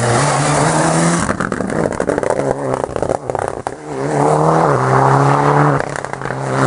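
Mitsubishi Lancer Evolution rally car's turbocharged engine revving hard through a hairpin, revs climbing and dropping with gear changes. From about one to four seconds in the exhaust crackles and pops off the throttle, then the engine pulls up through the revs again.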